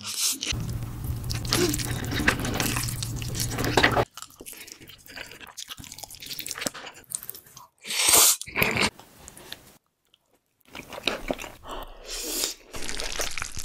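Close-miked eating sounds: slurping and chewing cheese-and-corn fire noodles, in several short clips joined by abrupt cuts, with a brief silent gap about ten seconds in.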